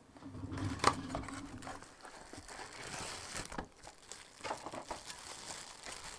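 Objects being handled and rummaged through: crinkling and rustling, with a sharp click about a second in and a few lighter knocks and clicks later.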